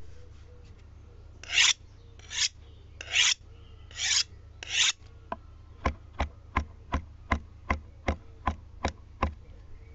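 Five short rasping scrapes, then a run of about eleven sharp ticks, a little under three a second, over a faint low hum.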